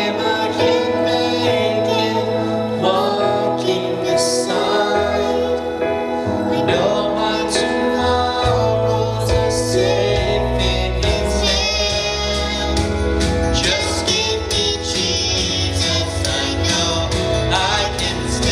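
Gospel song with voices singing, a woman's among them, over instrumental accompaniment with a bass line.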